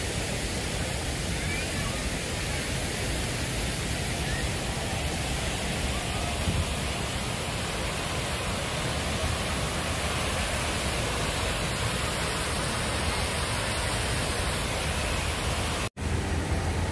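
Fountain water falling and splashing into its basin, a steady rushing. It breaks off abruptly near the end, and the low rumble of street traffic follows.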